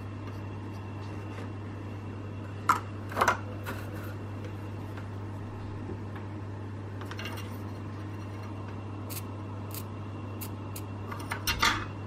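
Light clicks and knocks of small tools being handled on a workbench, two sharp ones about three seconds in and a short cluster near the end, over a steady low electrical hum.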